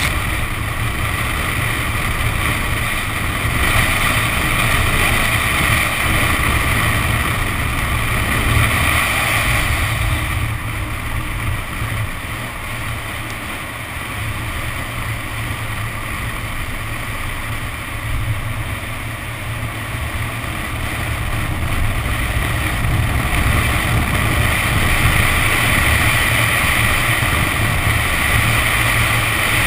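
Nissan 370Z's 3.7-litre V6 driven hard on a flooded track, its tyres hissing through standing water amid wind rush on the outside-mounted camera's microphone. The sound eases off through the middle and builds again toward the end.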